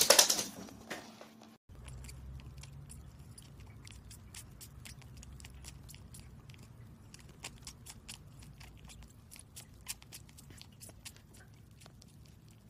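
A cat chewing and licking a plush toy's paw: many small, irregular wet clicks and smacks over a low hum. A louder burst of clicks comes right at the start, cut off by a short gap.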